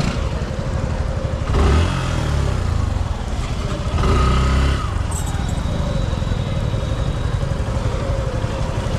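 Suzuki Gixxer motorcycle engine idling, blipped twice with the throttle, about a second and a half in and again about four seconds in; each time the revs rise sharply and fall back to idle.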